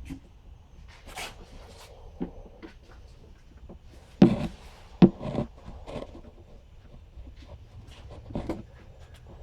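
A scatter of handling knocks and clicks over a low steady hum, with two sharp knocks about four and five seconds in.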